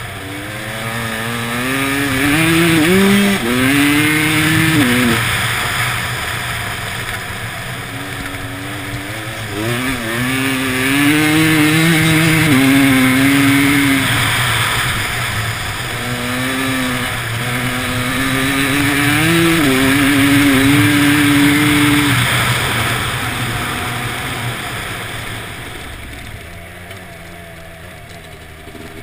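Motorcycle engine under hard acceleration, its revs climbing and dropping back in steps as it shifts up through the gears in three pulls. Over the last few seconds the revs fall away and it runs quieter.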